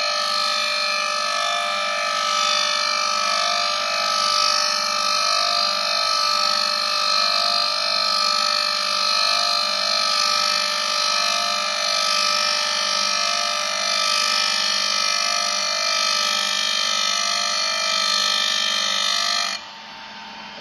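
WSLC-160 plastic-pipe thread-cutting machine milling a thread into a plastic pipe: a steady, high-pitched whine from the spinning cutter and its electric motor, which cuts off abruptly near the end.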